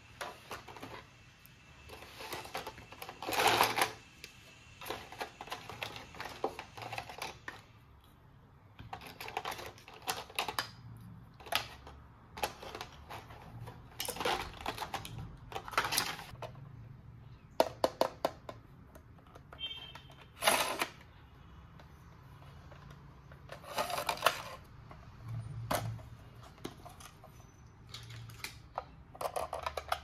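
Small plastic toy parts being handled: irregular clicks, taps and short scrapes, with a brief higher tone about twenty seconds in.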